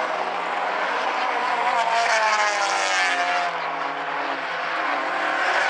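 Several small race cars' engines running hard on a short oval track, with overlapping engine notes. About two seconds in, one engine note slides down in pitch as a car goes by or lifts off.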